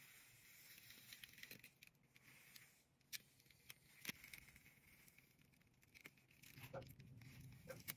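Near silence, with a few faint scrapes and clicks from an electric hot comb being drawn through hair.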